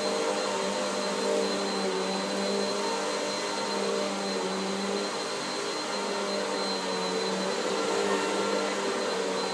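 Bissell CleanView OnePass bagless upright vacuum running steadily as it is pushed over low-pile carpet, its motor giving a constant hum.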